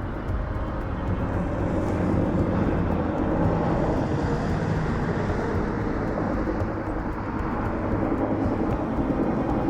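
Helicopter in flight, a steady rotor and engine drone that grows louder over the first couple of seconds.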